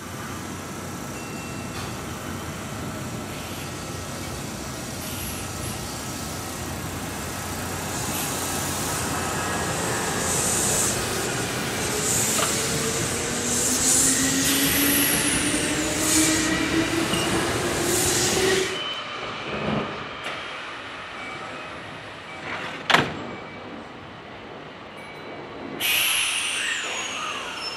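Kintetsu electric commuter train running past close to the platform, wheels rumbling on the rails with high-pitched squeals and a motor whine rising in pitch before the sound drops away abruptly. After a sharp click, another train comes in near the end with a short falling squeal.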